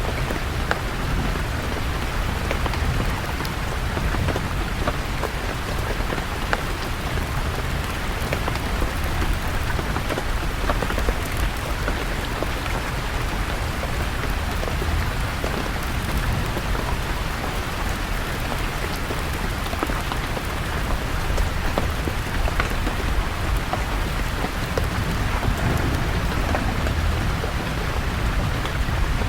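Steady rain, a dense patter of many small drop ticks, over a continuous low rumble.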